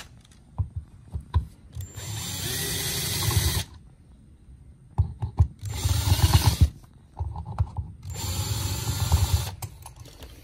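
Cordless drill-driver running in three short bursts of about a second and a half each, backing out the mounting screws that hold a wall outlet in its box, with small clicks and knocks between the runs.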